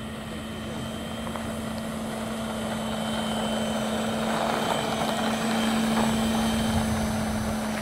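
Electric ducted-fan motor of a radio-controlled F-16 model jet running at low power, a steady-pitched whine that grows louder as the jet taxis closer.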